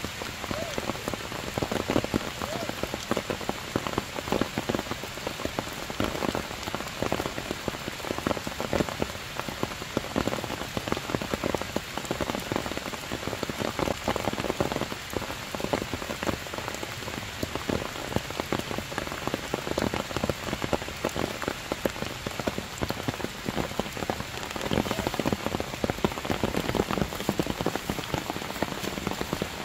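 Heavy rain falling steadily, with a dense, constant spatter of close drop hits.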